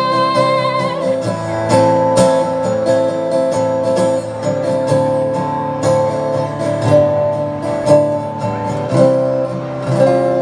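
Solo acoustic guitar strumming the closing chords of a song. A held sung note with vibrato fades out about a second in, leaving the guitar alone.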